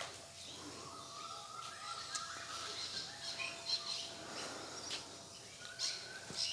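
Birds chirping and squawking in the background, with a few faint clicks of handling.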